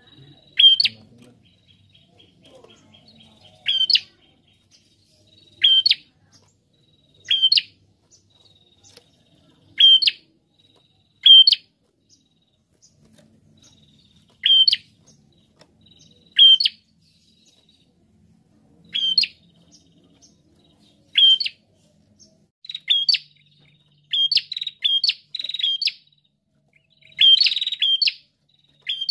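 Rufous-headed tailorbird (prenjak kepala merah) calling: loud, short, sharp high notes about every two seconds, coming faster in runs of two or three in the last few seconds.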